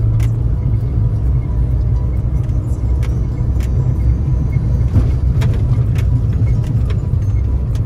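4x4 vehicle driving, a steady low engine and road rumble with scattered sharp knocks and rattles every second or so.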